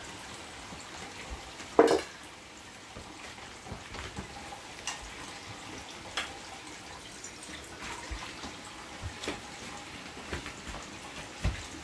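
Light clicks and knocks of tableware, dishes and chopsticks being handled, over a faint steady hiss, with one louder knock about two seconds in.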